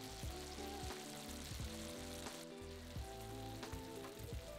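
Pork belly pieces sizzling softly in a thick soy, honey and sugar glaze in a frying pan as the glaze reduces and turns sticky. Gentle background music plays under it.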